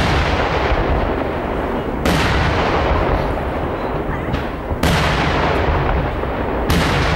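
Aerial fireworks shells bursting overhead in a daytime display. Loud bangs come about every two seconds, each trailing off in a long echoing rumble that runs into the next.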